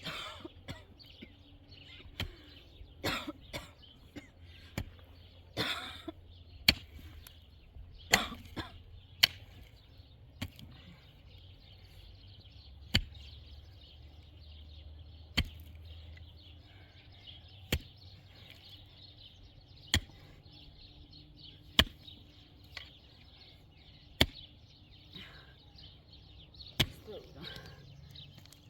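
Sharp single impacts repeating about every two seconds, more irregular and clustered in the first ten seconds, over a steady high-pitched hiss.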